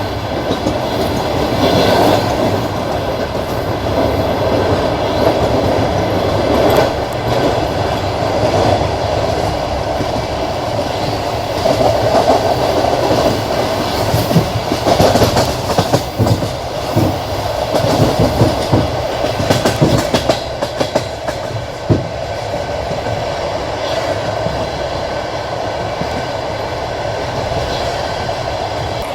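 Passenger train rolling along at speed, its wheels clacking over the rail joints above a steady rumble. A denser run of louder knocks comes through the middle stretch.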